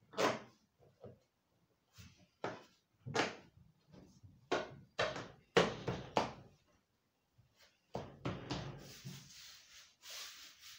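A series of about nine dull knocks and thumps as hands press and tap a vinyl-covered B-pillar trim panel into place on an FJ Holden's body, then a longer rubbing hiss near the end as the trim is pressed and smoothed down.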